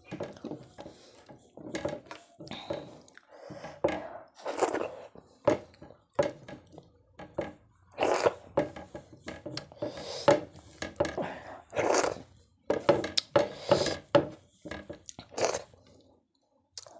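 A person eating khichuri with her fingers: wet chewing and mouth smacking in irregular short bursts.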